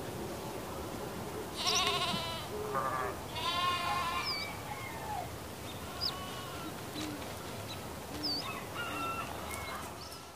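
Sheep and lambs bleating: three quavering bleats about one and a half to four seconds in, the first the loudest. Short bird chirps are scattered through the rest, and the sound fades out at the end.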